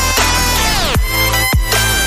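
Background electronic music with deep, pitch-dropping drum hits and a synth sweep that glides downward through the first second.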